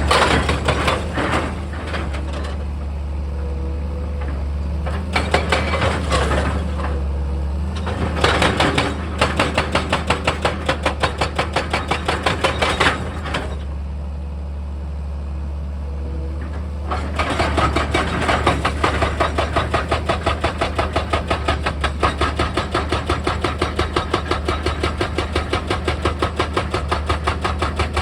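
A heavy machine's engine running steadily, with spells of rapid percussive hammering at about five blows a second. The hammering comes in short spells in the first half and runs without a break from a little past the middle.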